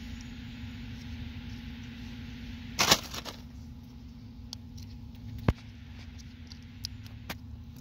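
Hands handling low-voltage lighting cable and plastic twist-on wire connectors while splicing: a short rustle about three seconds in, a sharp click a couple of seconds later, then small ticks. A steady low hum and rumble runs underneath.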